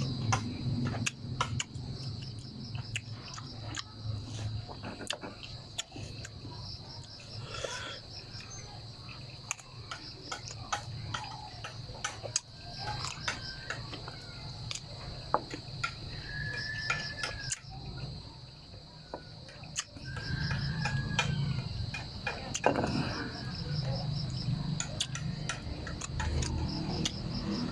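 Eating santol: chewing close to the microphone with many scattered sharp clicks, over a steady high-pitched insect trill of crickets.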